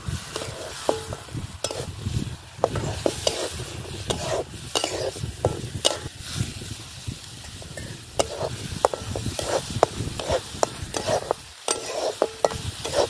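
Ground masala frying in hot oil in a steel pan, sizzling steadily, while a steel spatula stirs it with frequent irregular scrapes and clicks against the pan.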